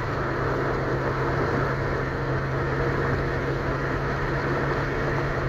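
Steady road noise inside a moving car: a low engine hum under an even rush of tyres and wind.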